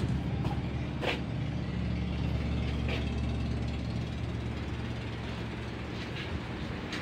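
Steady low drone of a ship's engine running while the vessel is under way, with a couple of faint knocks about a second and three seconds in.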